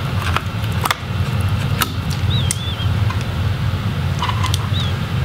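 Light clicks of a small screwdriver and screws being handled on a laptop's logic board and case, a few sharp clicks in the first two seconds. A steady low hum runs underneath, and a few short high chirps sound a little over two seconds in and again near the end.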